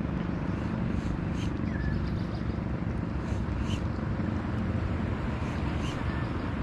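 Steady low outdoor rumble, with a few faint short chirps scattered through it.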